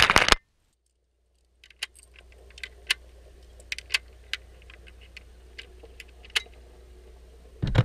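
Small sharp metallic clicks and rattles at uneven spacing, the sound of hands handling a pistol or gear close to the microphone, over a faint low hum. A loud rush of noise fills the first split second and returns just before the end.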